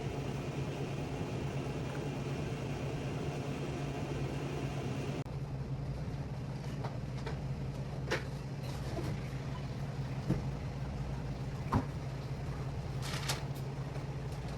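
Steady machine hum with a handful of sharp clicks and knocks scattered through the second half, typical of commercial kitchen equipment running with utensils clattering.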